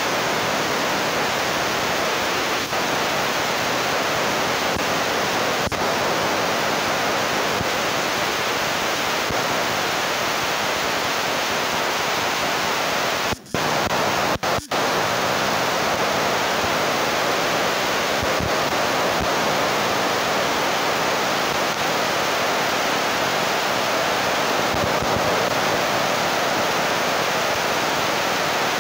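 Steady rushing noise with no distinct events, cutting out briefly twice about halfway through.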